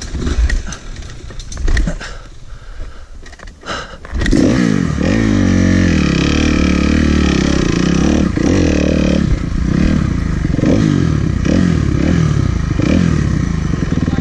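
Dirt bike engine on the rider's green Kawasaki, low and uneven with a few knocks for the first few seconds, then about four seconds in pulling hard under throttle, its pitch rising and falling as the rider works the throttle up the trail.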